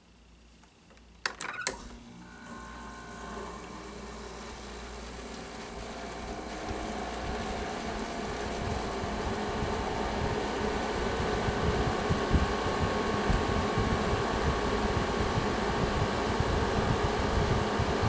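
Frigidaire FRA052XT7 5,000 BTU window air conditioner starting up: a few sharp clicks about a second in, then its fan starts and runs with a steady whir that grows gradually louder over the following seconds.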